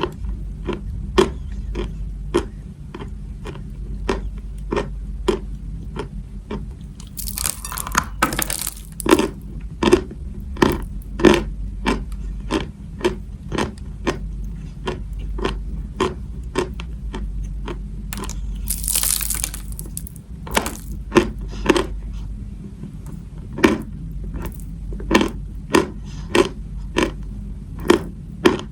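Close-miked chewing of chalk: sharp crunches about twice a second, with two longer gritty crushing bursts, one about a quarter of the way in and one about two thirds of the way in. A low steady hum runs underneath.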